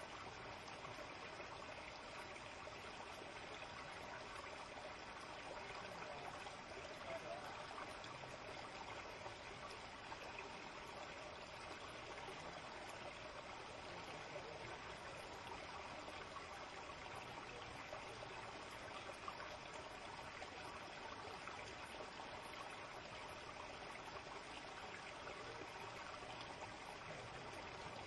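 Shallow forest stream flowing steadily over rocks, a faint even rush of water.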